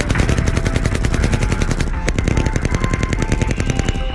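Rapid automatic rifle fire: an unbroken run of shots at about a dozen a second through the whole stretch, in a ballistic test firing on an armoured vehicle.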